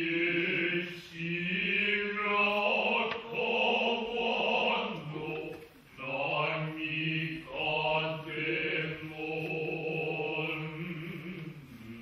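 Men's voices chanting Kita-school Noh utai in long, steady held notes, broken by short pauses for breath.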